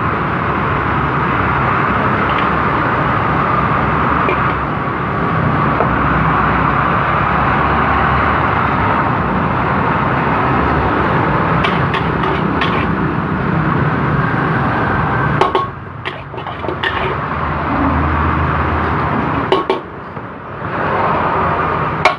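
Fried rice cooking in a wok: a steady hiss of frying over a gas burner, with a few sharp metal clinks of utensils. The sound drops away briefly twice in the last few seconds.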